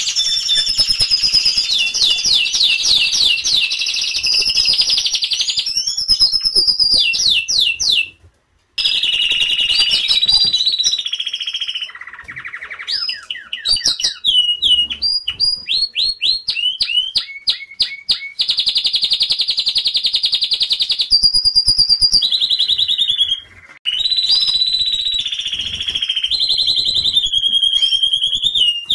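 Domestic canary singing: long rapid trills and rolls alternating with series of quick chirps that slide down in pitch, with a brief break about eight seconds in.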